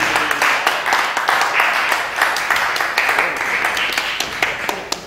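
A group of people applauding, the clapping dense at first and thinning out toward the end.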